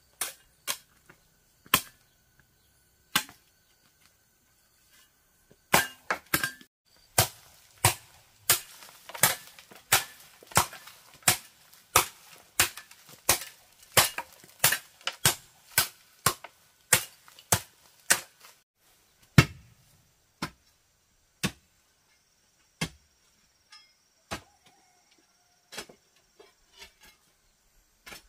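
Sharp hand-tool blows on bamboo: a few scattered knocks, then a steady run of about two strikes a second for some twelve seconds, one heavier, deeper thud, and scattered knocks again near the end.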